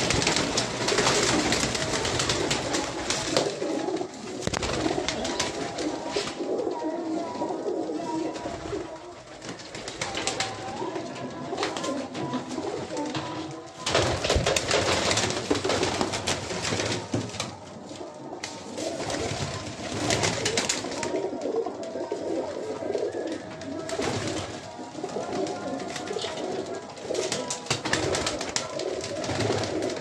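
A flock of teddy pigeons cooing continuously in their loft, with frequent sharp flutters and claps of wings as birds take off and land.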